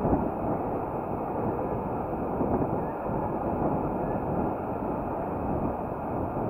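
Wind buffeting the microphone of a camera carried on a moving bicycle: a steady low rumble.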